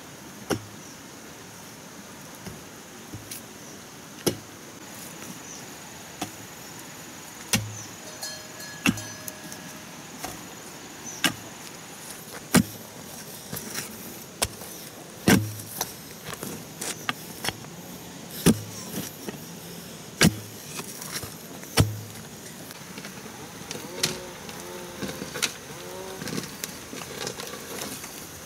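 Hoe blade chopping into dry, stony soil while a hole is dug: a sharp strike with a dull thud every one to three seconds.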